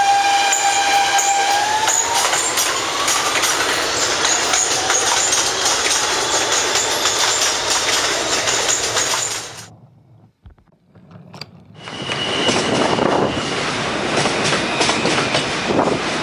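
Recorded New York City subway train pulling out: a steady motor tone that starts rising in pitch about a second and a half in, over wheels clattering on the rails. It fades out around ten seconds in, and after a brief near-silent gap a second train comes in with wheel clatter and a thin, high squeal.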